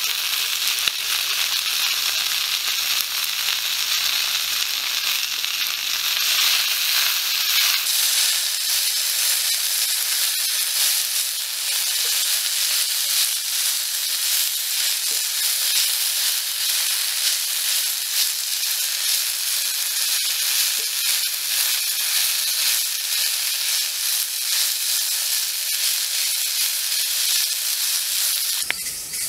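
Leafy greens frying in a hot metal wok, a steady sizzle, while a bamboo stick stirs them. The sizzle drops off sharply near the end.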